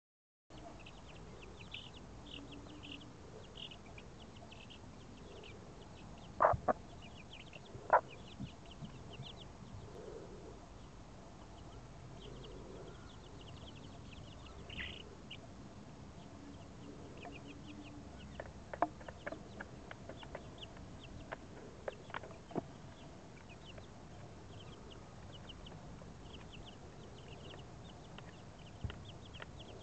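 Young chicks peeping constantly in short high cheeps, with a hen's low clucks now and then. Two loud sharp taps come about six and a half and eight seconds in.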